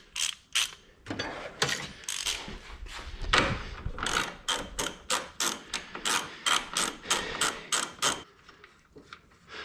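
Socket ratchet clicking in a steady run of about three clicks a second as the 17 mm nuts holding a strut bar are worked loose; it stops near the end.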